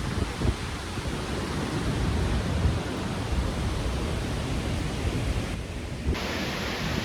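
A waterfall's steady rush, with wind buffeting the microphone in low gusts; the sound changes abruptly about six seconds in.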